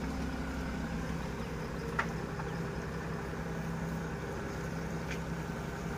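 Forklift engine idling steadily with a low, even hum, while the forklift holds a heavy root-balled tree on its forks. One short click about two seconds in.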